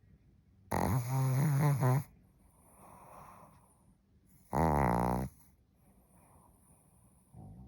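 A sleeping cat snoring: two loud snores about three and a half seconds apart, a softer breath between them, and a fainter third snore beginning near the end.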